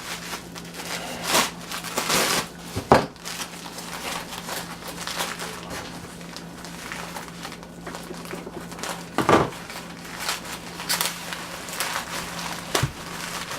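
Bubble wrap and plastic packaging being pulled apart and unwrapped by hand, crinkling and crackling, with a few knocks about three seconds in, around nine seconds in and near the end.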